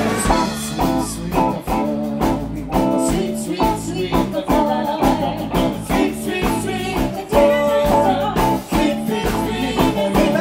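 A live band playing to a steady beat, led by electric guitar, with singing.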